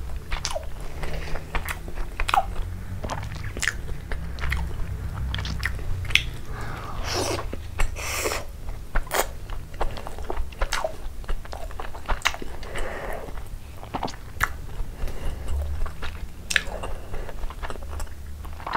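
A person chewing soft Indian sweets close to the microphone: irregular mouth clicks and smacks throughout, over a steady low hum.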